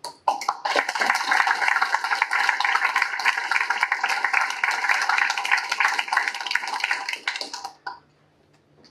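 Audience applauding, beginning at once and dying away after about seven and a half seconds.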